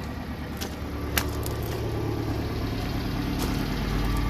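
Subaru Sambar mini truck's small engine idling steadily, growing louder over the few seconds, with a few faint ticks.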